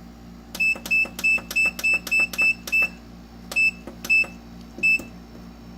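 Ultrasonic cleaner's control-panel keypad beeping as its buttons are pressed to set the cleaning timer. First comes a quick run of short, identical beeps, then three more spaced further apart.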